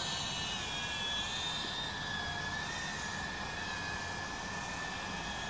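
DJI Avata FPV drone's motors and propellers whining steadily in flight, a high pitch over a rushing hiss that wavers slightly with throttle.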